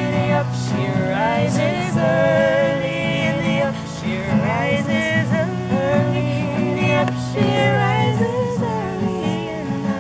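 A woman singing to an acoustic guitar, the melody rising and falling over steady chords.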